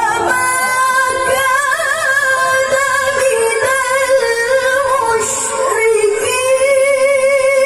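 A woman reciting the Quran in the melodic tilawah style, holding long notes with wavering ornaments.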